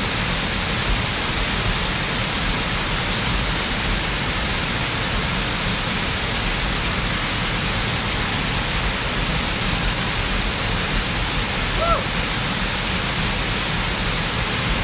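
Spring-fed waterfall pouring out of the side of a mountain, a steady loud rushing of falling water close by.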